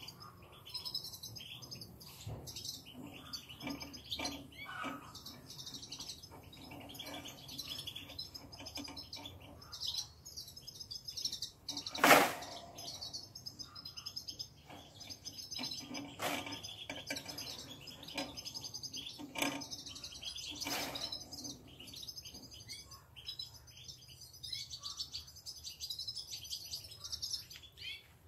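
European goldfinches in an aviary chirping and twittering throughout. A sharp clack from the wire cage being handled about twelve seconds in, with fainter knocks a few seconds later.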